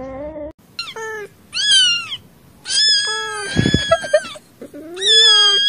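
A cat meowing four times in high-pitched, drawn-out calls whose pitch bends up and down. The longest meow comes in the middle and lasts about a second and a half.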